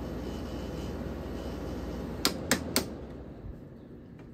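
Quasar room air conditioner running steadily with a low hum, then three sharp clicks about halfway through as its control is switched. The running sound then dies away and the hum stops: the unit being shut off.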